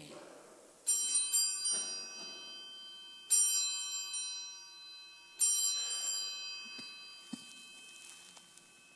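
Altar bells rung three times at the elevation of the chalice, marking the consecration at Mass. Each ring is a cluster of high, bright tones that fades away.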